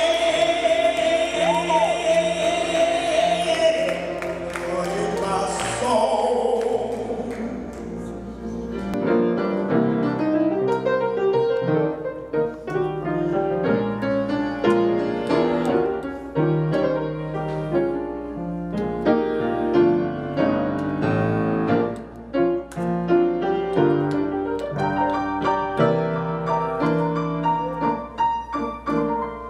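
A woman's voice holds a long sung gospel note over piano accompaniment, fading out about six seconds in. Then a Baldwin grand piano plays a solo passage of chords and melody.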